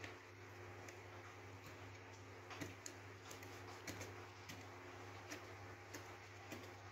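Faint, irregular small clicks and taps from a grease pump's small metal suction valve being handled and wiped clean with a cloth, over a steady low hum.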